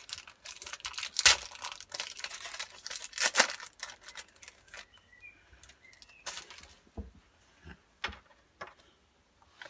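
A foil trading-card booster pack being torn open and crinkled, with loud crackles about a second in and again about three and a half seconds in. After that come a few scattered clicks as the cards are handled.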